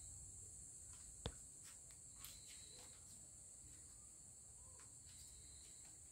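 Near silence: a faint, steady high-pitched hiss with a single sharp click about a second in.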